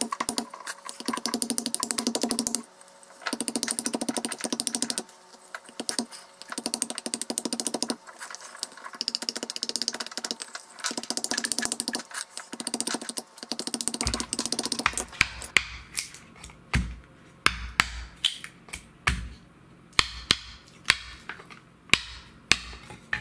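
A broad-bladed knife working a birch blank on a wooden stump: first runs of quick, rasping clicking strokes in bursts of about two seconds, then, about two-thirds through, separate sharp chops, each landing with a low thud from the stump.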